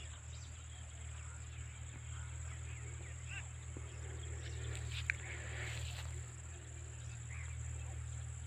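Open-field ambience: scattered bird chirps over a steady high-pitched insect drone, with a low steady rumble underneath and a single sharp click about five seconds in.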